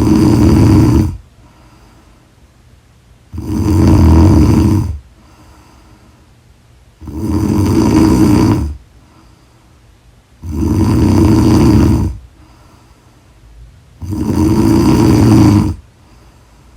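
A woman snoring loudly in a steady rhythm: one snore already under way at the start, then four more, each nearly two seconds long, about every three and a half seconds, with quiet breaths between.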